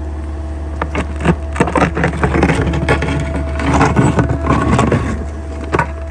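Small Sany excavator's diesel engine running with a steady hum while its bucket digs into leaf-covered ground. From about a second in, a run of cracks, crunches and scrapes comes as the bucket tears through soil and roots, loudest about four seconds in; it eases off near the end.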